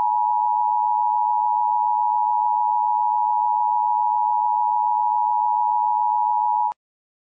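Emergency-alert attention tone: one loud, steady electronic tone that cuts off suddenly near the end.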